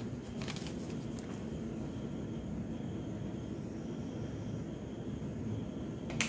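Steady low rumbling background noise, with a few faint clicks and one sharper click near the end.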